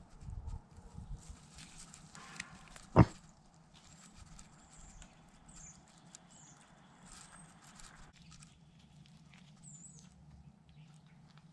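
Close sounds of a mini pig moving around, picked up by a GoPro strapped to its back: low rustling and shuffling, with one sharp knock about three seconds in. Faint high chirps come later.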